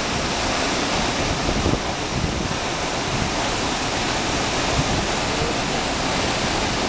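Steady, loud rush of Athirappilly Falls, a large waterfall on the Chalakudy River, plunging onto rocks close by.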